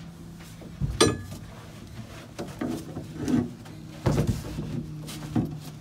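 Scattered knocks and clanks of a freshly cut piece of steel being handled and fitted against a steel dash frame, with a sharp ringing clink about a second in and a heavier thump about four seconds in, over a steady low hum.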